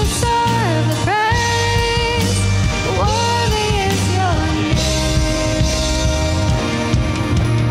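Contemporary worship song: a lead vocal sings over a full band with a steady bass line.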